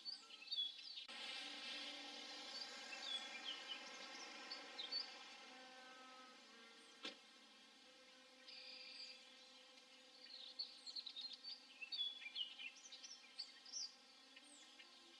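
Small birds chirping faintly, in scattered short calls that bunch together early on and again near the end, over steady background noise. A single sharp click about seven seconds in.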